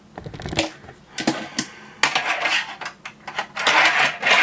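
Hard plastic fingerboard ramp parts clacking and scraping as a plastic rail is handled and pushed into place: a few sharp clicks, then a longer scraping clatter that is loudest near the end.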